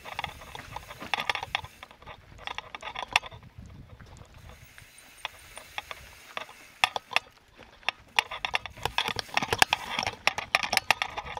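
Mountain bike clattering over rough rocky ground: irregular knocks, rattles and clicks from the bike, thinning out for a few seconds in the middle and picking up again near the end.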